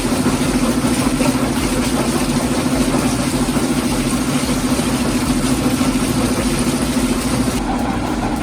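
Heavy machinery running steadily, with a loud, constant low hum under a dense mechanical noise.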